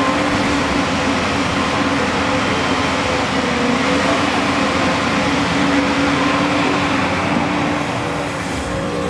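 JCB crawler excavator's diesel engine running steadily under working load, with a wavering hum, as the arm swings and the bucket digs into soil.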